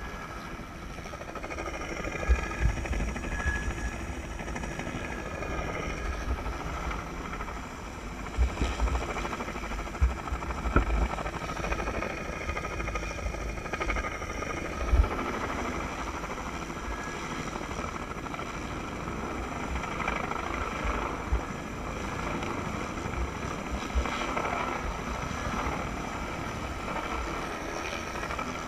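Helicopter rotor and engine noise heard from the short-haul line hanging beneath it, with faint steady high tones over it. Wind buffets the microphone in irregular low thumps, most in the first half.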